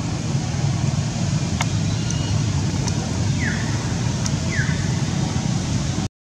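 A steady low rumbling noise, with two short falling chirps near the middle and a few faint clicks. The sound cuts out abruptly just before the end.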